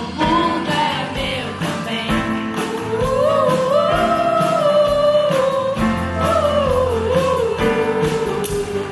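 Live student band performance: a singing voice holds long notes that glide up and down over a steady drum beat and bass.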